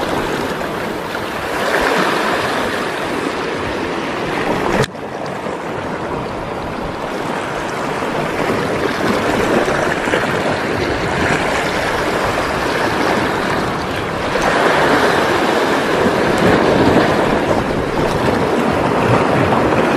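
Sea surf washing against shoreline rocks, a steady noise that swells and eases every few seconds, with wind buffeting the microphone. The sound drops suddenly about five seconds in, then builds again.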